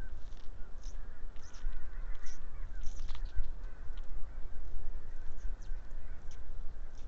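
Animal calls, many short wavering chirping notes, densest in the first few seconds, over a steady low rumble from the outdoor webcam microphone.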